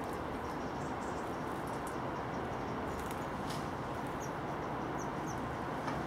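Steady outdoor background rush, with a few faint light taps of a great tit pecking at peanuts in a wire-mesh feeder. Three short high chirps come about four to five seconds in.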